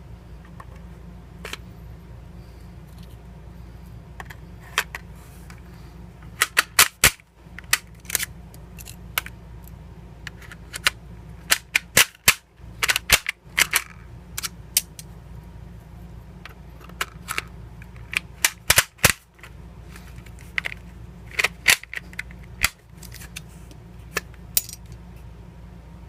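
5.56×45 rifle cartridges being pushed off stripper clips through a stripper-clip guide into a polymer AR-15/M4 magazine: clusters of sharp metallic clicks and snaps as the rounds go down, with short pauses between clusters.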